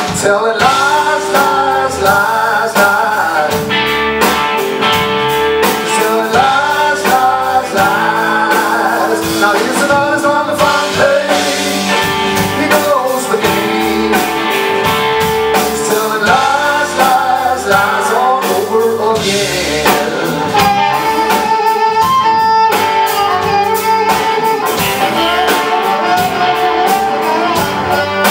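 Live blues band playing: electric guitar, electric bass and drum kit, with a blues harmonica played into a cupped hand-held microphone carrying the lead in long, bending notes.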